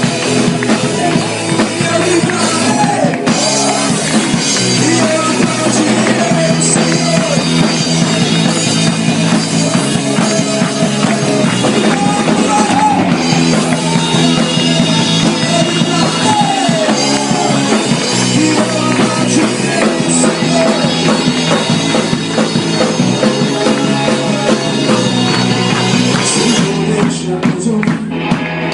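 Rock-style music with drum kit and a singing voice, playing steadily.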